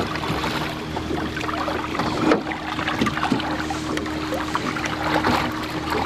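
A hooked fish thrashing and splashing at the surface beside a boat: irregular splashes and drips of water, over a steady low hum.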